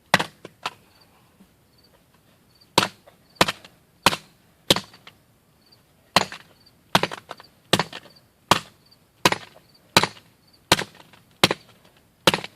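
Hammer blows on a smartphone: about fourteen hard, sharp knocks, one near the start, then after a pause a steady run of roughly one blow every 0.7 s as the phone is beaten and bent.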